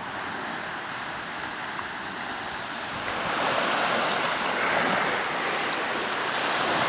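Ocean surf washing on the beach, with wind buffeting the microphone; a steady rush that swells a little louder about three seconds in.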